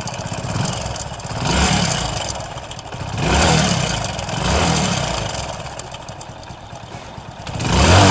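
Hero Passion Pro's single-cylinder four-stroke engine running, with the throttle blipped about four times. Under the exhaust note is a rattling racket from a slack timing chain, whose tensioner has run out of travel.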